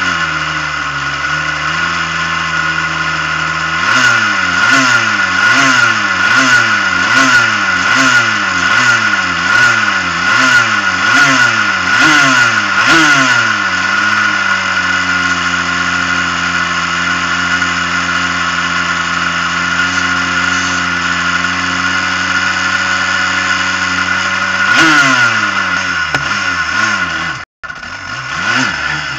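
Superkart's two-stroke engine running with the kart standing still: a steady fast idle, then from about four seconds in the throttle is blipped over and over, the revs rising and falling about twice a second for some ten seconds, before it settles back to a steady idle. Near the end the revs climb as the kart pulls away, with a brief cut-out in the sound.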